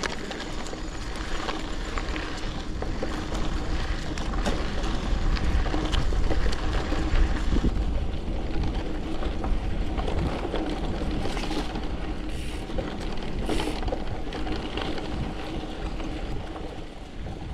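Gravel bike riding over a sandy dirt road: steady wind rumble on the microphone with the crunch of tyres and many small rattles and knocks from the bike.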